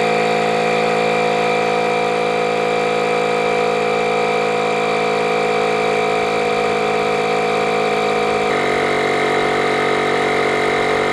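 Milwaukee M12 compact inflator's small battery-powered compressor running steadily, pumping up a low tire toward a set 60 psi. Its steady buzzing tone steps slightly lower in pitch about eight and a half seconds in.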